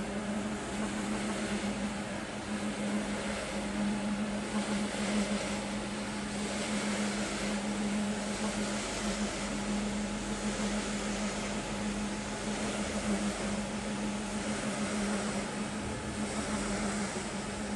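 Prochem carpet-cleaning machine running steadily, its motor giving a constant hum under the rushing noise of its brushes scrubbing shampoo foam into a wet rug.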